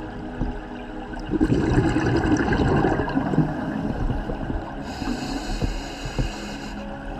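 Water bubbling and sloshing, with a louder rumbling burst of bubbles about a second and a half in, and a higher hiss near the end.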